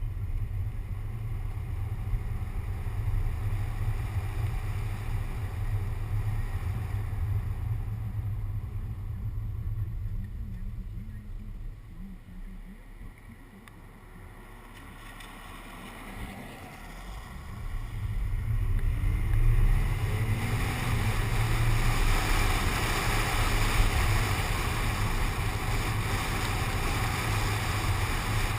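Wind and road noise from a moving car picked up by a camera mounted on its window in the rain: a steady low rumble with hiss. It dies down about halfway through, then builds back up louder with more hiss, as with a car slowing and speeding up again.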